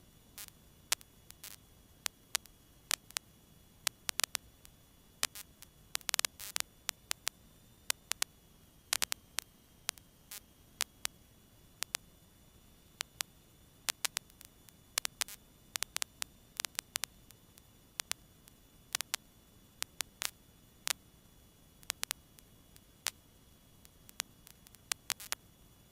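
Static on a cockpit radio and intercom audio feed: a faint hiss broken by many irregular, sharp crackling clicks, heard between radio transmissions.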